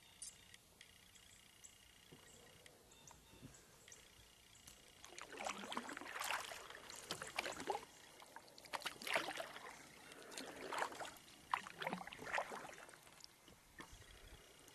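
Kayak paddle strokes in the water: a run of swishes, splashes and drips, about five strokes, starting about five seconds in.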